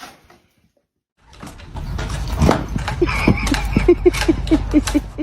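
A dog making a quick run of short yelping whimpers, about four a second, over a low rumble and scattered knocks.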